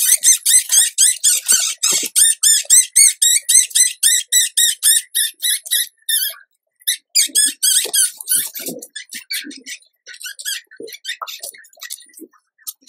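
Newborn rodent pups squeaking in the nest: rapid high arching squeaks, about eight a second, with a pause about six seconds in before another burst and then scattered squeaks. Soft rustling of the newspaper nest comes in near the middle.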